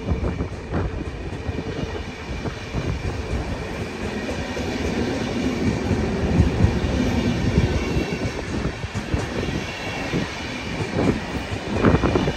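PKP Intercity passenger coaches rolling past at close range, their wheels clattering steadily over the rail joints.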